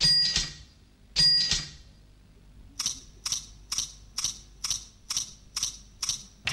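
Two ringing metallic clinks of coins, near the start and about a second in, each leaving a short clear ring. They are followed by a run of light, evenly spaced ticks, about two a second.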